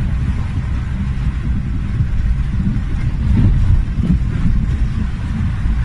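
Motor vehicle engine running with a steady low rumble, slightly louder about three and a half seconds in.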